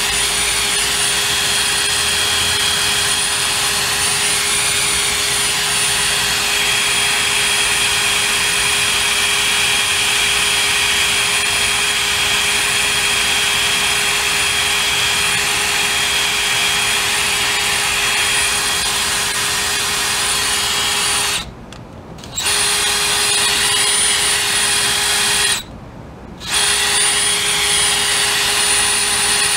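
Brushless cordless drill running steadily with a constant whine, spinning a long shaft inside the pintle hitch sleeve. It stops briefly twice near the end.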